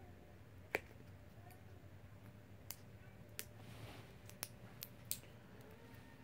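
A few faint, sharp clicks and taps of plastic drone parts and propeller blades being handled and set down, the loudest about a second in, with a brief soft rustle near the middle.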